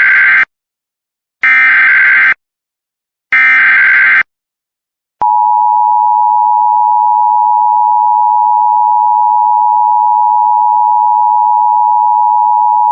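Emergency Alert System SAME header: loud bursts of warbling digital data tones, about a second each with short gaps, the first already under way and two more following. Then, about five seconds in, the steady EAS attention tone starts and holds.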